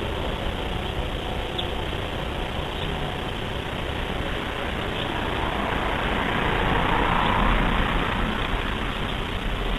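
Coleman Peak 1 442 camp stove burning kerosene, its burner flame giving a steady rushing noise that swells a little about six to eight seconds in. The flame is still yellow and flaring, so the stove is not yet preheated enough for the steady blue flame.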